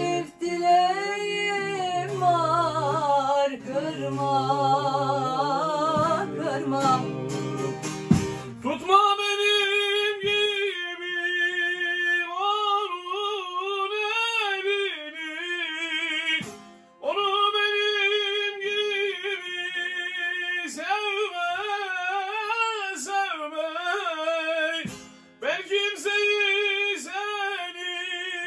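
Turkish folk song sung as a duet by a man and a woman to bağlama accompaniment, the voice ornamented and wavering in pitch. From about nine seconds in, the singing goes on with little else beneath it.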